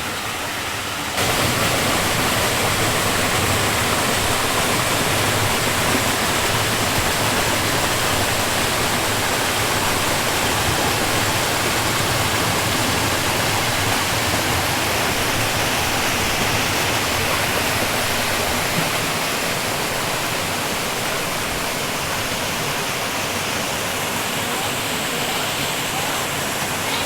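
Rushing stream water running over rocks, a steady full rush that gets louder about a second in.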